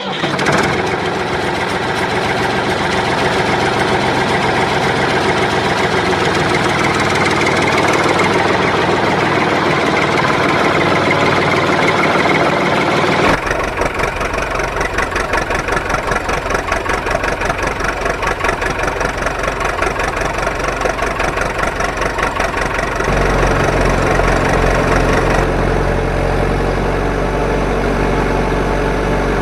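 Engine running and idling steadily, the sound switching abruptly to a deeper rumble about a third of the way in and changing again around three quarters of the way through.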